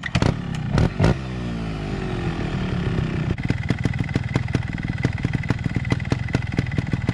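Fuel-injected Sherco two-stroke trials motorcycle engine: two sharp throttle blips in the first second, the pitch falling away over the next couple of seconds as it drops back to a steady idle, with a regular ticking over the idle.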